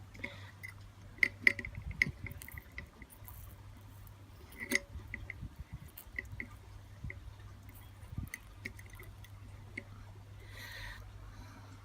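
Flux crackling and spitting as solder is worked onto a copper heatsink with a soldering iron: irregular small ticks and pops, a few sharper clicks, and a brief hiss near the end, over a steady low hum.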